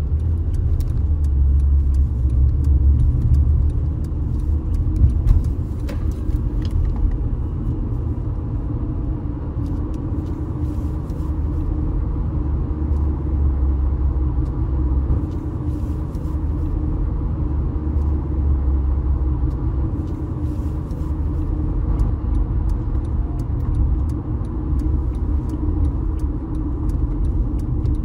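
A car on the move: steady low engine and road rumble, with faint clicks and rattles now and then.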